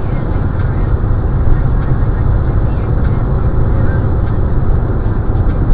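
Steady low rumble of road, tyre and engine noise inside a car's cabin while driving at highway speed.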